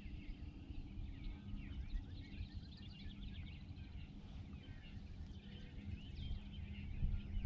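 Many small birds chirping in quick, short calls over a steady low rumble of wind on the microphone.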